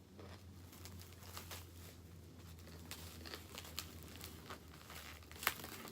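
Faint crinkling and small scattered clicks from food packaging being handled and kimbap being eaten, with two sharper clicks near the end and a low steady hum underneath.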